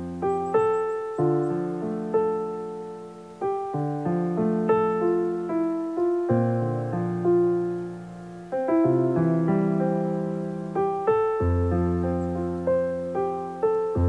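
Background piano music: slow chords and notes, each struck and left to ring and fade.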